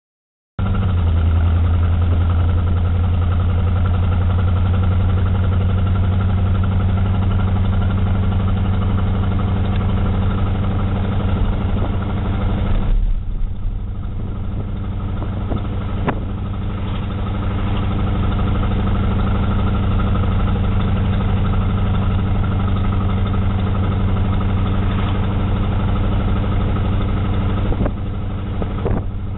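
Car engine running steadily while driving, heard from inside the car as a low, even drone. The sound eases briefly about halfway through and again near the end.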